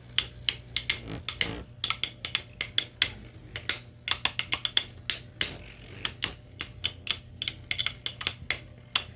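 3D printed Beyblade spinning tops clashing in a plastic stadium: rapid, irregular sharp clicks as the plastic tops strike each other and the stadium.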